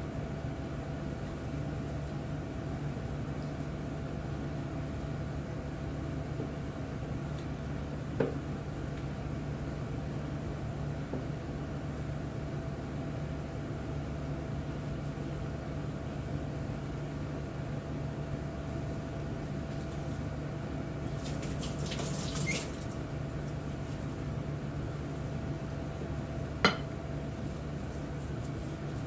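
Steady background hum with a low drone running throughout. A sharp knock comes about 8 seconds in and another near the end, with a short hiss a little after 20 seconds.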